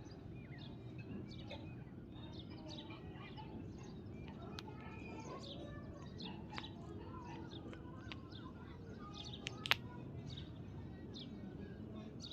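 Birds chirping faintly with many short, quick calls, over a low steady hum, with a few sharp clicks, the loudest about ten seconds in.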